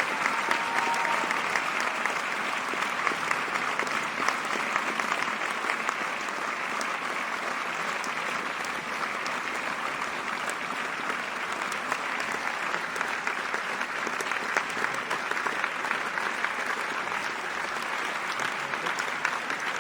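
Large theatre audience applauding, many hands clapping in a dense, steady ovation.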